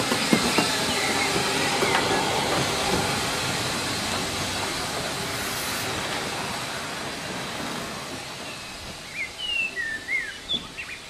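Steam locomotive hauling a goods train past: steam hiss and wheels clicking over rail joints, fading away as the train leaves. Short high chirps of birdsong come in near the end.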